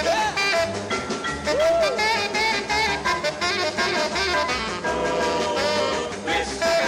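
Upbeat early-sixties rock and roll twist song in an instrumental break over a steady beat, with 'twist, twist' sung near the end.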